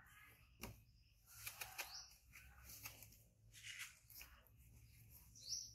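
Near silence, with faint rustling of clothing being handled on a baby monkey, a soft click about half a second in, and two brief high rising chirps, one near the middle and one near the end.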